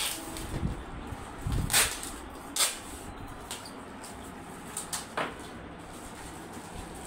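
Several separate knocks and clicks over a low steady background noise, the loudest between about one and a half and three seconds in.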